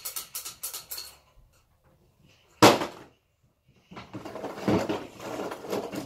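Loose Lego bricks clattering as a child rummages through a plastic storage bin: a quick run of clicks at the start, one sudden loud burst about two and a half seconds in, then irregular rattling to the end.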